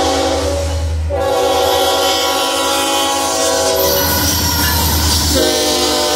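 Union Pacific freight locomotive's multi-tone air horn blowing a chord at a grade crossing, broken briefly about a second in and again about four seconds in as the locomotive passes, over the low rumble of its diesel engine.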